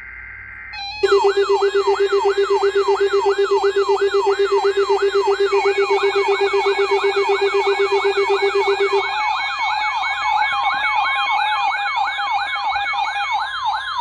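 Electronic siren-type alert alarm wailing fast, its pitch sweeping up and down about three and a half times a second from about a second in. A steady low tone runs under it until about nine seconds in, and a steady tone joins near the end.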